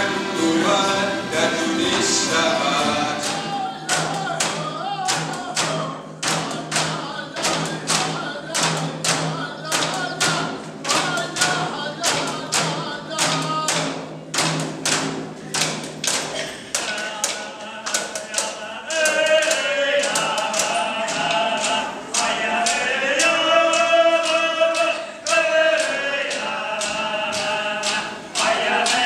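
Inuit frame drums (qilaut) beaten with sticks in a steady rhythm of about two strikes a second, under group chant singing. After about two-thirds of the way the drumming thins out and the singing carries on louder.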